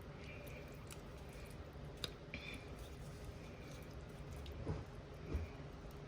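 Faint squishing and dripping as a thick egg, cream and Parmesan mixture is poured onto hot fettuccine in a pot, with a few light clicks.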